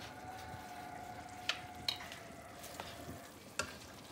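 Banana flambé sauce sizzling in a stainless steel pan while a spoon stirs it, the spoon clicking sharply against the pan three times.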